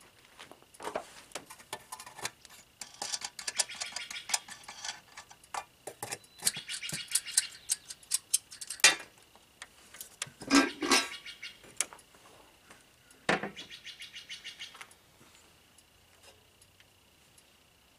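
Hands working the metal air cleaner lid and air filter on a 1993 Chevrolet K3500 pickup's engine: clicks, rattles and scrapes as the lid is undone and lifted and the filter element is pulled out, with the sharpest metallic clanks about nine and ten and a half seconds in.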